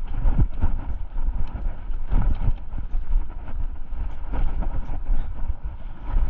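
Rocky Mountain Instinct mountain bike rattling and knocking as it rides over a rough, rocky trail, with irregular thuds from the wheels hitting rocks and roots. Wind buffets the microphone.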